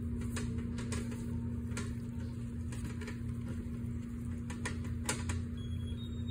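Robot lawnmower on hoverboard hub motors driving across grass: a steady low hum with irregular clicks and rattles, about two a second.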